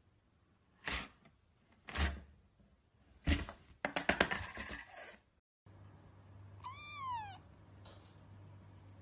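Three thumps and then a rapid scrabbling rattle as a cat pounces at a cardboard box. Then a kitten gives one short meow that falls in pitch.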